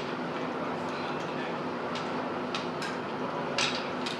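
A few light metallic clicks from M1 Garand rifle parts being handled as the rifle is field stripped and the gas cylinder and forearm are worked off the barrel. The clicks fall in the second half, over a steady room hum.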